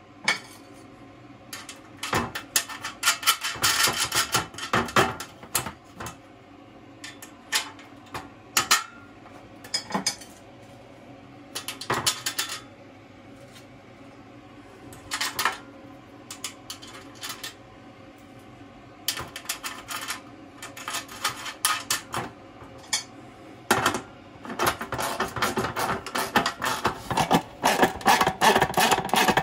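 Repeated bursts of light metallic clinking and rattling from tools and fittings being handled against a metal consumer unit enclosure. The bursts come in irregular clusters a few seconds apart, the longest near the end, over a faint steady hum.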